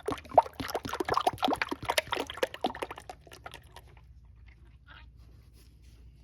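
Engine oil glugging out of a plastic 5-quart jug into a funnel in the engine's oil filler, a quick irregular run of gurgles for about three seconds that then dies down to faint drips.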